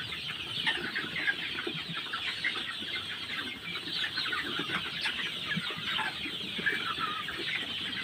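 A large flock of Sonali chickens clucking and chattering, many short calls overlapping in a continuous din.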